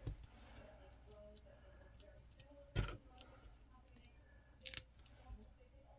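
Quiet handling of small paper-craft pieces on a table: faint rustling, a single sharp knock about three seconds in, and a short crisp click near the five-second mark.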